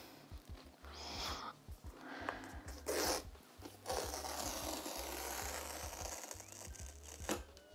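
Paper tear strip being ripped off a sealed Apple MacBook Pro box: short rips about one and three seconds in, then a longer, even tearing from about four to seven seconds.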